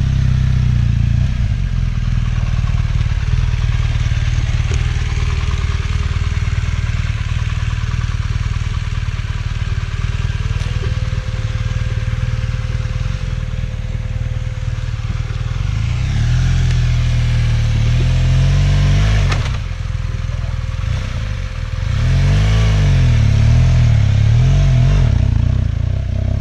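Off-road motorcycle engine running as it climbs a dirt trail, heard from on the bike, with the revs rising and falling in two spells of throttle, about two-thirds of the way through and again near the end. A single sharp knock comes about three-quarters of the way in.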